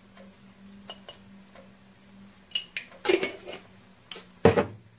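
A few sharp clinks and knocks of kitchenware being handled beside a frying pan: a spoon and a glass spice jar. The loudest is a heavier knock about four and a half seconds in.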